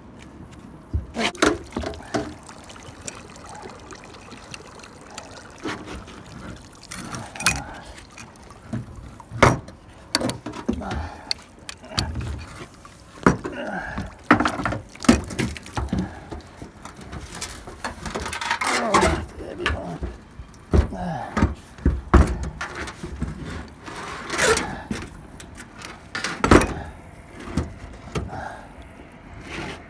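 Water splashing and dripping as a sunken bicycle and its chain are hauled out of a lake on a magnet-fishing rope, with irregular knocks and clanks of wet metal and rope on the dock boards.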